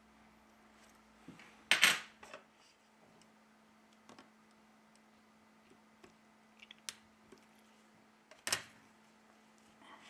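Metal tool and small phone parts clicking and clacking against the phone's frame during reassembly: two louder clacks about two seconds in and near the end, with a few light ticks between. A faint steady hum runs underneath.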